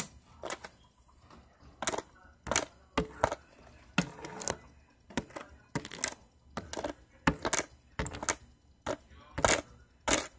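Hairbrush bristles swept against the phone's microphone in short, scratchy strokes, roughly one or two a second at an uneven pace.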